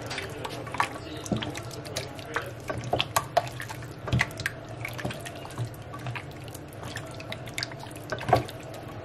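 Hands squishing and turning raw chicken drumsticks in an oily spice marinade in a glass baking dish: irregular wet squelches and small slaps, over a faint steady low hum.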